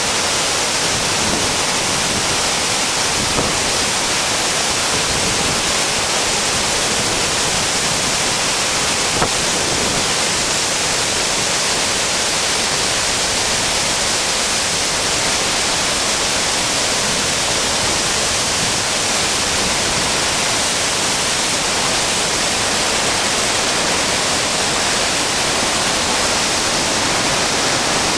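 Muskrat Falls on the Churchill River: the loud, steady rush of a large waterfall and its whitewater rapids.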